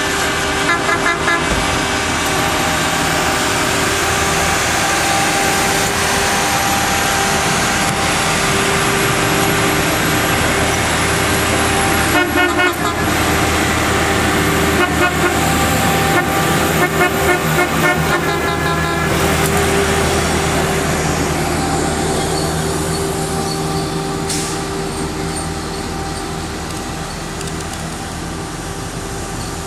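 A yellow rail maintenance-of-way machine's engine running steadily as it rolls along the track past, with short bursts of louder, rhythmic sound over it near the start and several times around the middle, then fading as it moves away.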